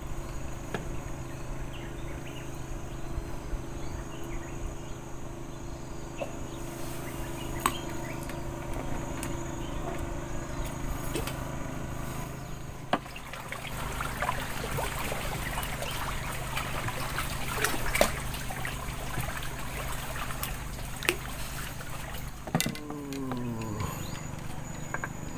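Outdoor waterside background: steady insect buzzing with trickling water, the water sounds turning busier and more crackly about halfway through, with a few sharp clicks and a short falling tone near the end.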